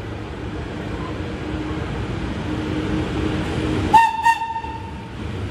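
FS class E652 electric locomotive approaching with a freight train, its rumble and hum growing louder, then sounding its horn: two short blasts about four seconds in, the tone trailing off about a second later.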